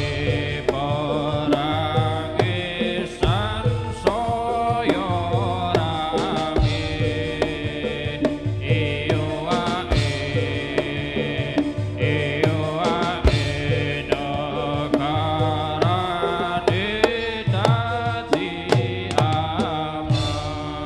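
Live Javanese gamelan music with hand-drum (kendang) strokes in a steady pattern, sharp percussion hits and a wavering sung melody over it.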